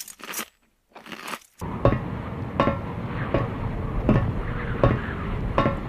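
Footsteps on an open metal staircase: six ringing metallic steps, one about every three-quarters of a second, over a steady hiss. Before them, a few faint clinks of a spoon in a plastic bowl.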